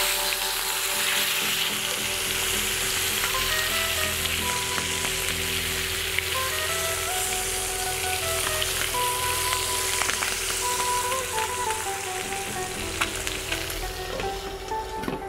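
Chicken quarters searing in hot oil in a frying pan, sizzling steadily, with scrapes and taps of a spatula and wooden spoon as the pieces are turned. Near the end a glass lid goes on and the sizzle becomes duller.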